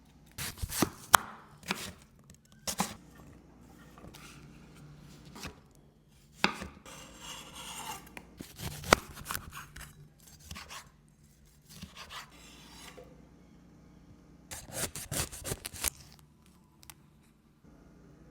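Knife chopping fresh tropical fruit on a cutting board: irregular groups of sharp chops and taps, with softer slicing and scraping sounds between them.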